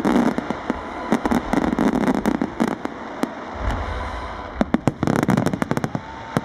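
A fireworks barrage: a rapid stream of bangs and crackling from massed ground and aerial fireworks. It thins out briefly in the middle, then a fresh cluster of sharp bangs comes about five seconds in.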